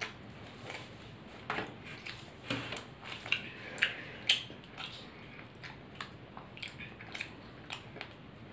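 Eating sounds: chewing paratha and soybean curry, heard as irregular wet clicks and smacks, with fingers tearing the flatbread on a steel plate. The louder smacks fall in the first half.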